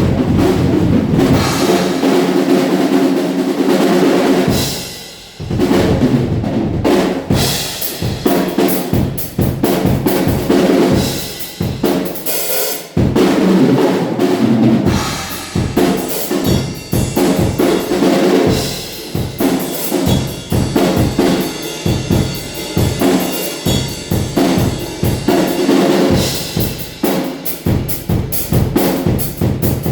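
Acoustic drum kit being played in a room: kick drum, snare and cymbals in a steady stream of beats and fills, with a brief let-up about five seconds in.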